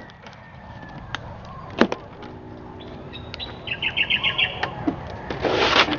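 A utility knife and the cardboard box of a new air compressor being opened: a few sharp clicks and snaps as the packing straps and tape are cut, the loudest just before two seconds in, then a rasping scrape of blade and cardboard near the end. A small bird chirps a quick run of about seven notes midway.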